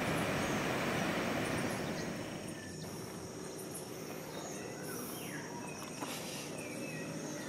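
Outdoor ambience: a steady, high insect drone throughout, with a few short bird chirps in the second half. Under it is a louder, even noise that eases off about two and a half seconds in.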